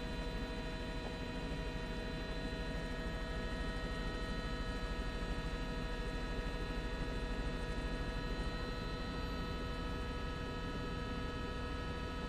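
Steady drone of a helicopter cabin on an open microphone: a low rumble with several steady whining tones above it, unchanging throughout.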